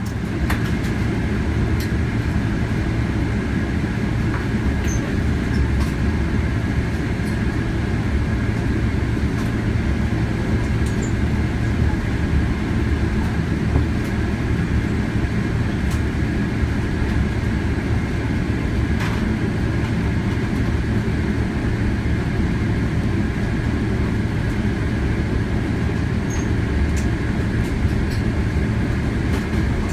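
Cabin noise inside a Boeing 777-300ER taxiing with its GE90-115B engines at idle: a steady low rumble with a thin, steady engine whine above it.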